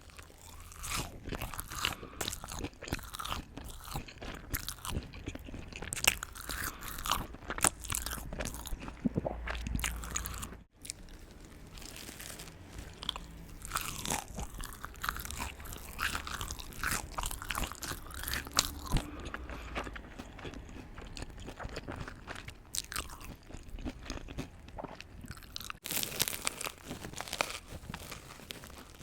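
Crunchy food being bitten and chewed close to the microphone in an irregular run of crisp crunches.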